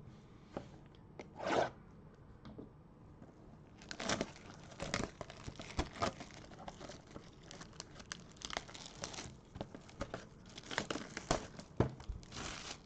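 Plastic wrapping on a box of football trading cards being torn open and crinkled, in irregular rips and rustles that come thick from about four seconds in.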